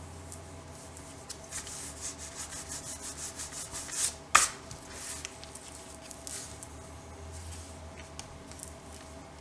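Quick back-and-forth rubbing strokes on paper, growing louder, ending in one sharp click about four seconds in, followed by a few softer scrapes.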